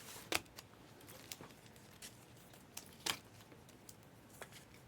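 Trading cards and foil pack wrappers being handled: a few short, sharp clicks and light rustling, with the loudest click about three seconds in.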